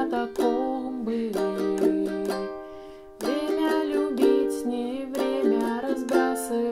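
Ukulele strumming chords in a slow five-stroke pattern, a long down-stroke followed by short down-up-down-up strokes. The chords ring out and fade briefly about three seconds in before the strumming picks up again.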